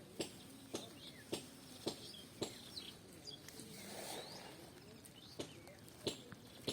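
Small birds chirping, with sharp taps recurring about twice a second for the first few seconds and again near the end.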